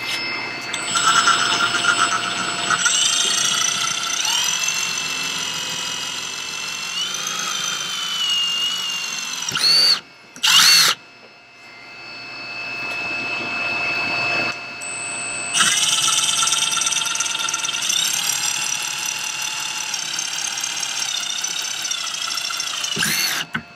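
Cordless Milwaukee drill boring holes through a kayak's plastic hull: a motor whine that shifts in pitch as the bit bites and loads up. It runs long, stops briefly about halfway with one short burst, then picks up again for a second long run.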